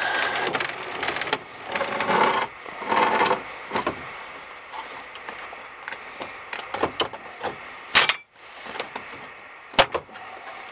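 Handling noises from a chainsaw mill being set up by hand, with the saw not running. A rustling, scraping stretch in the first few seconds is followed by scattered sharp knocks and clicks, the loudest about eight and ten seconds in.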